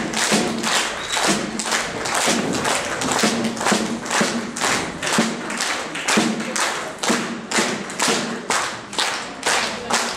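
Marching snare drums struck in a steady beat, about three strokes a second, some strokes ringing with a low drum-head tone.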